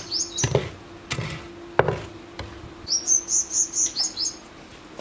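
A small bird chirping in quick runs of short high chirps, at the start and again from about three seconds in. In the first two seconds there are three knocks from a wooden plank shoving hot coals and ash aside on the floor of a wood-fired clay oven.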